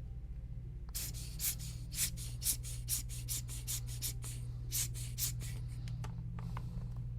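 Quick rubbing or scrubbing strokes, about four or five a second, from cleaning a small PS5 controller part. They run from about a second in to just past five seconds, over a steady low hum.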